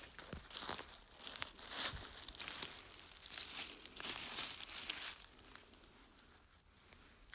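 Footsteps crunching and rustling through dry leaf litter in irregular bursts, dying down after about five seconds.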